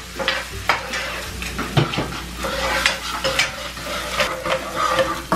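Stainless-steel spatula and spoon scraping and clinking against two frying pans while egg and onion sizzle in hot oil.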